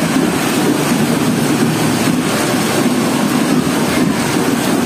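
Heavy rain pouring down onto a street, a loud, steady rush of noise.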